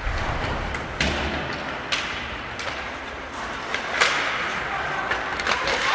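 Ice hockey play: several sharp knocks and thuds of sticks, puck and the rink boards, the loudest about four seconds in, over arena hubbub.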